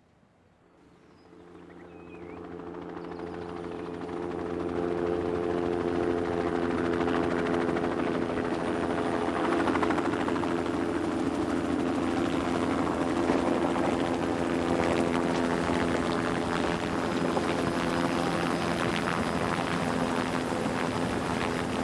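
Helicopter flying, rotor and engine growing louder over the first few seconds as it approaches, then a steady drone with a fast rotor beat.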